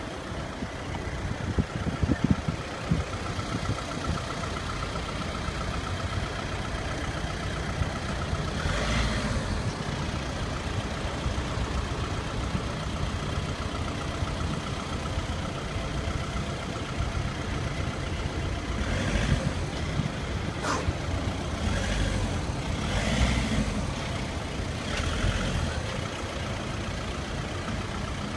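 A taxi driving slowly in city traffic: a steady engine and road rumble, with a few louder swells of passing traffic.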